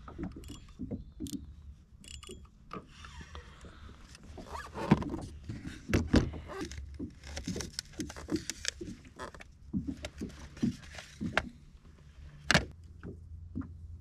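Irregular knocks, clicks and scrapes of fishing gear and bait being handled in a plastic kayak, including a knife cutting a bait fish in a foil tray, over a steady low rumble. The loudest knock comes near the end.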